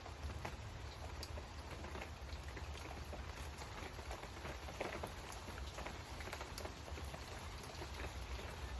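Rain falling: a steady hiss with scattered individual drops ticking, over a low rumble.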